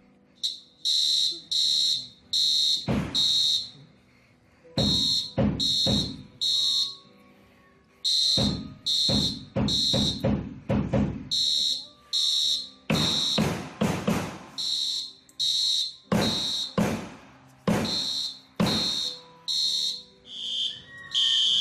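School fire alarm horn sounding in high-pitched pulses, about two a second. An AR-15 rifle fires shot after shot in irregular clusters at close range, each sharp crack ringing in a classroom.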